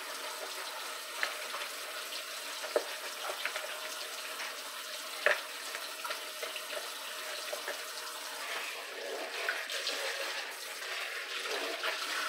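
Kitchen faucet running a steady stream into a stainless steel sink while a plastic tub and then hands are rinsed under it, with a few sharp knocks along the way.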